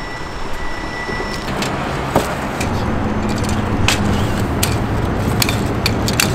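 A car engine idling, a steady low hum, with several sharp metallic clanks as an aluminium folding table is folded up.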